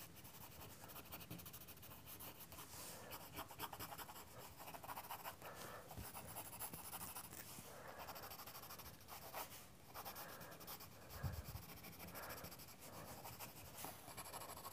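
Graphite pencil scratching softly on sketching paper in quick back-and-forth shading strokes, the side of the lead laid flat to block in dark tone. One soft thump about eleven seconds in.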